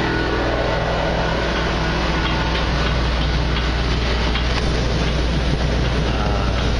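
13,500 BTU travel-trailer air conditioner running on cool: a steady deep compressor hum that comes on at the start, over the even rush of the fan blowing air from the ceiling vents.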